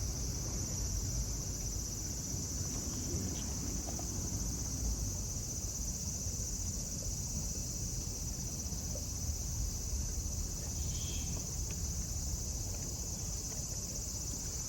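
Insects shrilling in one steady, unbroken high-pitched drone, over a low background rumble.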